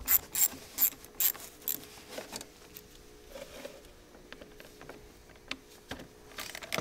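Hand ratchet clicking in short strokes, about two or three a second, while a hose clamp is loosened. After that come scattered lighter clicks and handling noises, with a few more clicks near the end.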